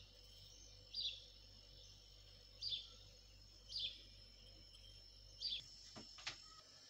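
Faint bird chirping: four short, high chirps about a second or two apart over a low steady hum, followed by two soft clicks near the end.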